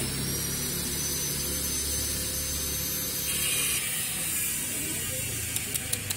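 Street background noise with a motor vehicle's engine hum fading away, then a quick run of sharp clicks near the end.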